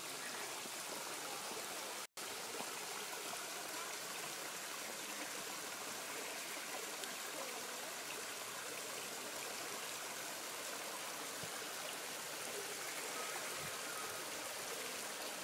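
Small mountain stream cascading over rocks, a steady rushing and splashing of water. The sound cuts out for an instant about two seconds in.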